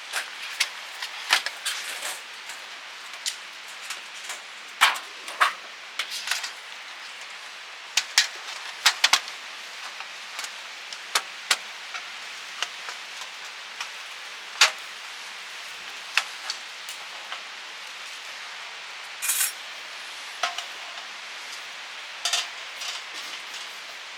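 Irregular light metallic clinks and knocks, as of camp gear being handled, over a steady hiss.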